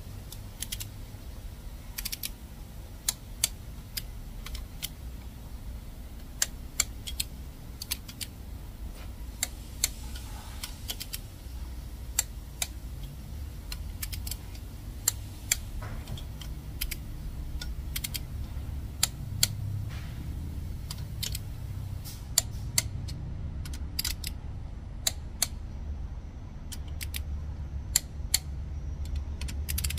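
Torque wrench clicking as cylinder head bolts are tightened in sequence to 40 N·m, the wrench's click marking the set torque on each bolt. The sharp clicks come at irregular intervals, sometimes two close together, over a low steady hum.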